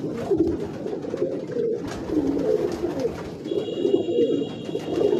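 Domestic pigeons cooing continuously in a loft, several birds' coos overlapping.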